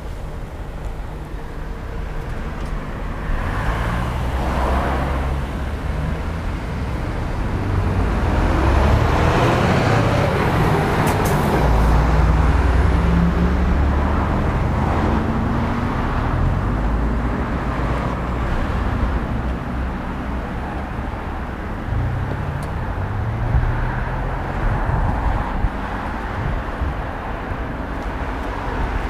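Road traffic passing: the low rumble of car and heavy-truck engines with tyre noise, swelling and fading as vehicles go by, and one engine climbing in pitch a little before halfway.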